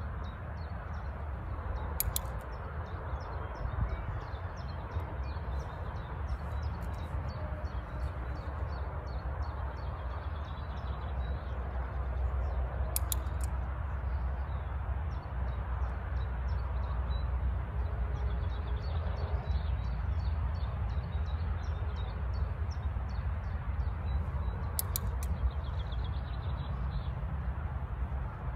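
Wind buffeting the microphone with a steady low rumble, while small birds chirp and sing throughout. Three sharp clicks cut through, spaced about eleven seconds apart.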